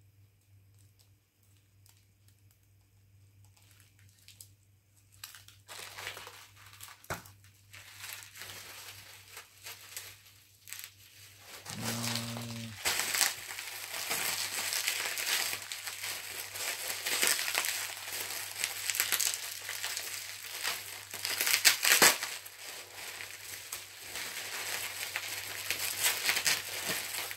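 Plastic packaging of boxed and blister-carded diecast cars crinkling and crackling as it is handled and shifted. It starts faintly about six seconds in and becomes louder and continuous from about thirteen seconds in.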